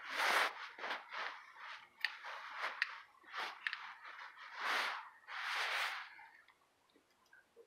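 Hushed, breathy whispering in short bursts, with a few faint clicks between them, dying away about six seconds in.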